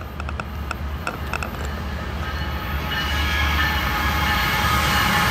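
Approaching CSX ES44AH diesel locomotive, its GE GEVO V12 engine a steady low rumble that grows slowly louder. Several steady higher tones join about three seconds in, and a few short high chirps come in the first second and a half.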